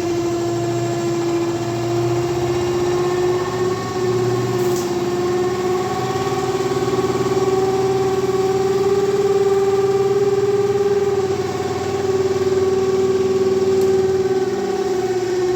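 Spin dryer of an LG 7.5 kg semi-automatic washing machine running with a loud, steady droning hum that wavers slightly in pitch. The noise comes from a piece of cloth caught beneath the spin tub.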